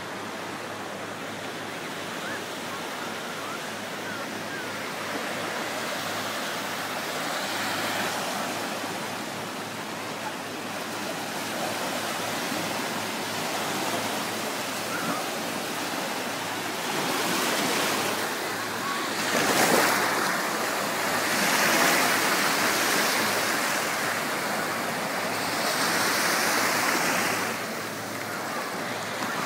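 Small sea waves washing in and lapping at the water's edge on a sandy beach, a steady rushing noise that swells louder several times in the second half as waves break.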